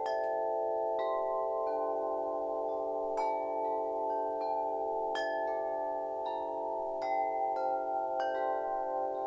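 Wind chimes ringing, with a fresh strike about once a second, irregularly, over a dense cluster of overlapping tones that keep sounding.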